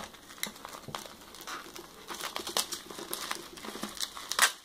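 Plastic mailer bag and bubble wrap crinkling as they are cut with scissors and pulled open by hand. It is a run of short crackles, with one louder crackle near the end.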